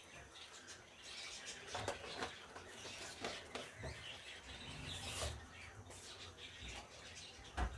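Red spatula stirring and scraping a simmering milk-and-sugar halwa mixture in a non-stick wok: faint, scattered scraping strokes.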